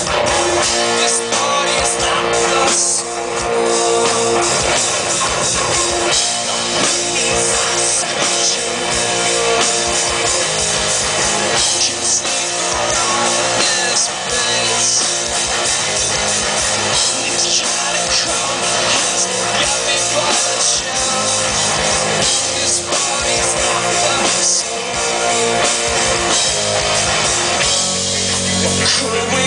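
Rock band playing live, loud and continuous: electric guitar, electric bass and drum kit.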